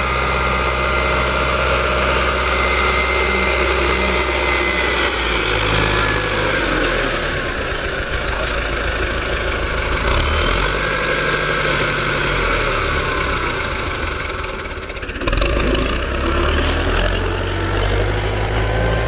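Tractor engine running steadily while pulling rotary spiked weeders through the soil between potato rows. The engine note shifts about five seconds in and again near fifteen seconds, after a brief dip in level.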